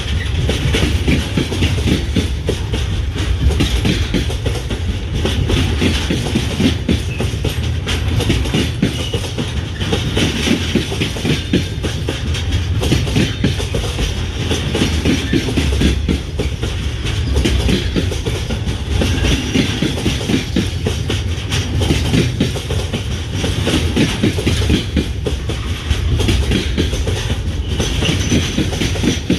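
A train running steadily past, its wheels clattering continuously over the rails over a heavy low rumble.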